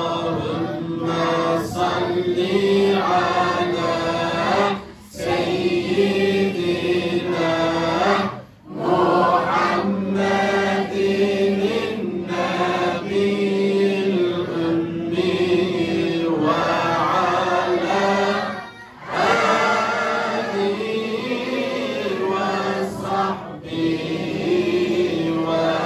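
Men's voices chanting a salawat together in a slow, drawn-out melody with long held notes. The chant breaks briefly for breath three times.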